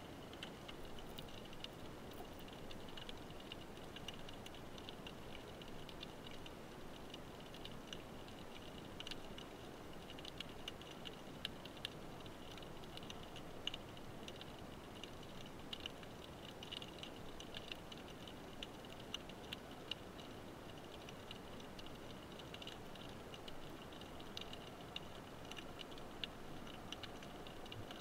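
Underwater ambient sound picked up through a camera housing: a dense, irregular crackle of small clicks over a faint hiss, with a few sharper, louder clicks scattered through the second half.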